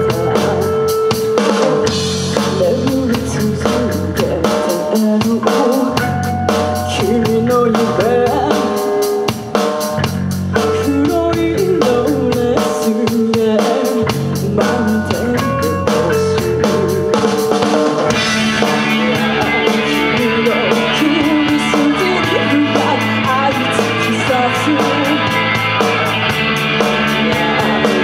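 Rock band playing live: a full drum kit with snare and bass drum prominent, over bass and electric guitar. About two-thirds of the way in, the music gets fuller and brighter.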